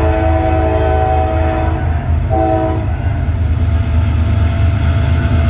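Diesel freight locomotive's air horn sounding the grade-crossing signal: a long blast ends about two seconds in, a short blast follows half a second later, and the next long blast starts just at the end. A steady low rumble from the approaching locomotives runs underneath.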